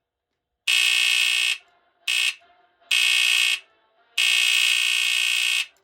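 FireX smoke alarm's horn sounding in four loud buzzy blasts of uneven length, the last and longest about a second and a half. It is set off by its interconnect wire being shorted to neutral, as if another alarm on the line had triggered it.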